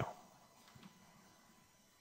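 Near silence: room tone, with one faint click just under a second in.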